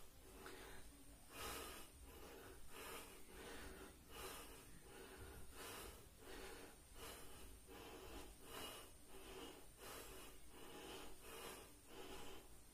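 Faint, rhythmic hard breathing of a man exerting himself during a floor exercise: short noisy breaths, about one and a half a second, each in time with a leg kick.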